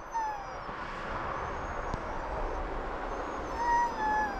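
Wolves howling: several drawn-out howls that slowly fall in pitch, overlapping at different pitches, with one clearer and louder howl near the end. A steady hiss sits beneath them.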